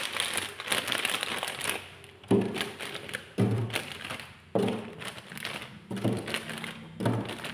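A plastic bag crinkles, then frozen ice pops in plastic tubes are set down one at a time on a freezer compartment's plastic floor, giving hollow thunks about once a second.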